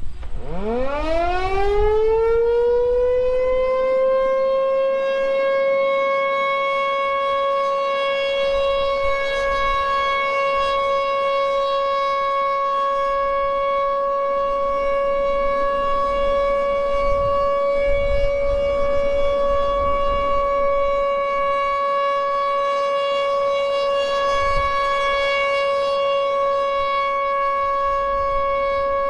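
ASC T-128 outdoor warning siren spinning up: its pitch rises steeply over the first three seconds or so, then settles into one loud, steady tone held throughout as a steady alert signal.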